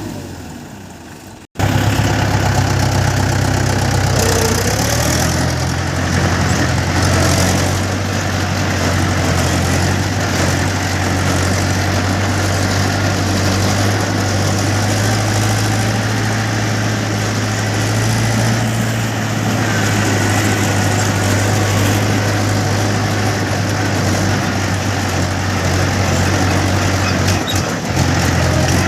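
Heavy diesel machinery engine running steadily at a near-constant speed with a low, even hum. It cuts in abruptly about a second and a half in, after a brief fade.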